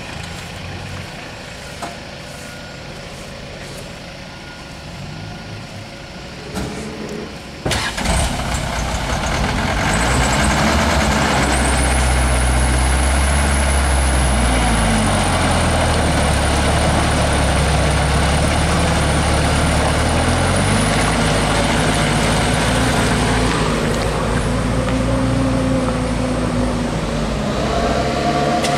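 Diesel engines of a tractor and a loaded light truck running under heavy load as the tractor tows the truck through mud. The engines rise and fall in revs and get much louder about eight seconds in, with a high steady whine through the middle.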